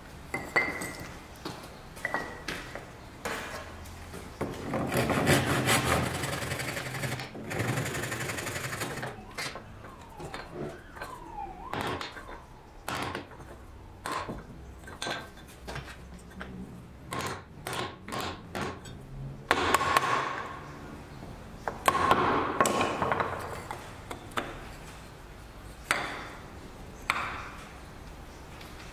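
Chisel and wood work on a workbench: a series of sharp knocks and taps with a few longer stretches of scraping, as small hardwood pieces are pared with a chisel and pressed together into a cross lap joint.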